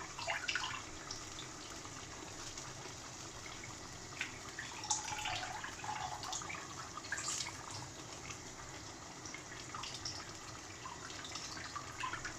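A pot of tomato-pepper sauce and chicken broth bubbling on the boil as parboiled rice is added, with irregular wet pops and splashes.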